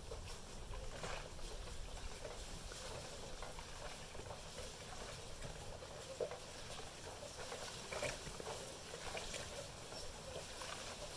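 Honey bees buzzing around a hive entrance, with brief louder buzzes as single bees pass close, strongest about six and eight seconds in.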